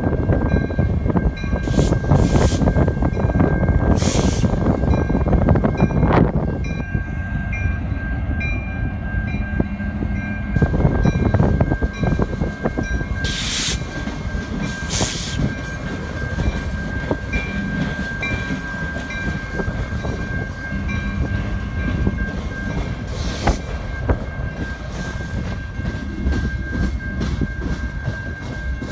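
A freight train led by a CN/GTW diesel locomotive passing through a grade crossing: the locomotive is loudest in the first six seconds or so, then the railcars rumble and clatter by. The crossing's warning bell rings steadily throughout, with a few short screeching or hissing bursts from the train.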